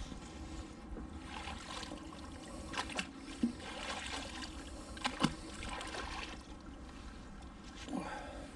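Wet scrap metal from the canal being handled on a magnet-fishing magnet: a few sharp metallic clicks, in pairs about three and five seconds in, the loudest near the middle, over water trickling off the haul.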